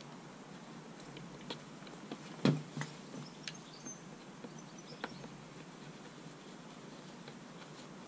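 A few light clicks and taps from hands working on small handlebar parts and screws, with one louder knock about two and a half seconds in.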